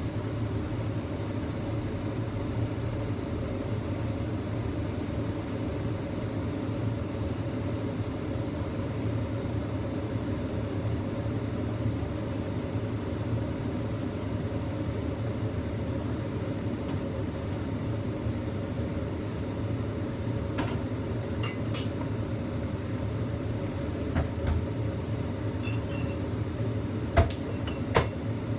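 Steady low rumble of a lidded wok steaming over a lit gas burner, water boiling under the lid. A few sharp clicks come late on, the loudest two near the end.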